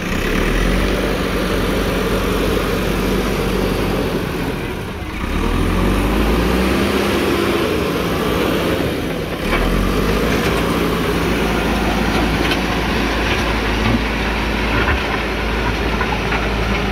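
JCB 3DX backhoe loader's diesel engine working under load while the front bucket pushes and levels soil. The engine note rises and falls a few times near the middle.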